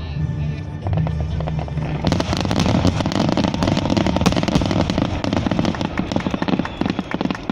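Japanese display fireworks bursting and crackling in a rapid, dense barrage that thickens about two seconds in, over music.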